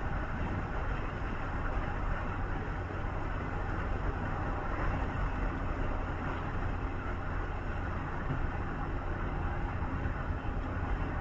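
Steady engine and road noise of a vehicle driving at a constant pace on the highway, heard from inside the vehicle.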